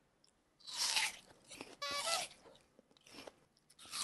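Close-up crunchy bites and chewing of food, a few sharp crisp crunches with softer chewing between.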